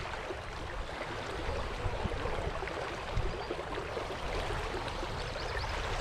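Shallow creek water rushing steadily, with a few faint low knocks.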